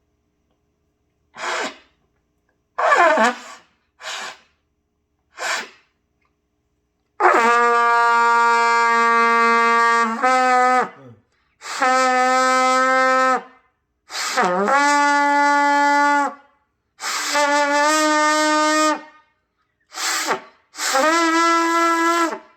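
Trumpet played by a learner. First come four short, faltering note attempts, then a run of long held notes, each a little higher than the one before. Several notes scoop up to pitch as they start, typical of a beginner struggling to get each note to sound when starting it afresh.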